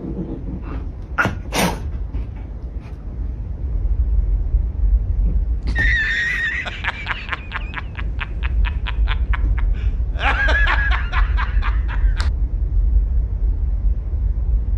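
Laughter in two bursts of fast ha-ha-ha pulses, the first about six seconds in and the second about ten seconds in, each lasting two to three seconds. Two short sharp sounds come just over a second in.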